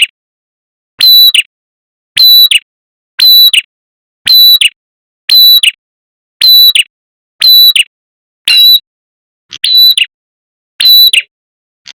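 Recorded calls of a prenjak kepala merah, played as a lure: one short, sharp, high call repeated about once a second, each call the same, with total silence between them.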